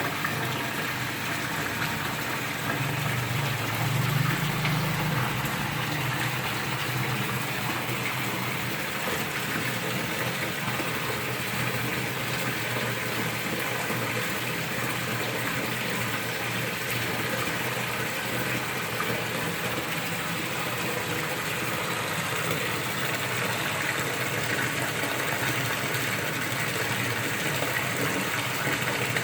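Water pouring steadily from a small fish-pond waterfall into the pond, an even rushing splash with a brief low swell about four seconds in.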